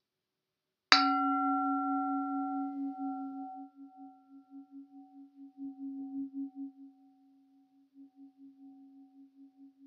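A large brass singing bowl struck once with a wooden mallet about a second in, then ringing with a low wavering tone and higher overtones that slowly die away. It is the closing strike that marks the end of the healing session.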